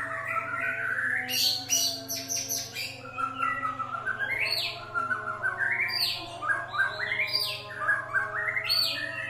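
White-rumped shama (murai batu) singing a varied song of whistled phrases that glide up and down, mixed with sharp clicking notes, over a steady low hum.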